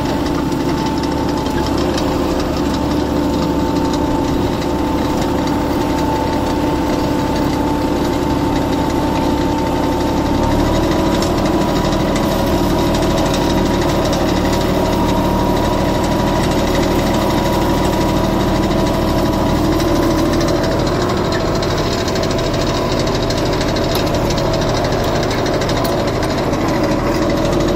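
John Deere 5075E tractor's three-cylinder diesel engine running steadily under load, pulling a two-bottom mouldboard plough through the soil. Its note steps up slightly about ten seconds in.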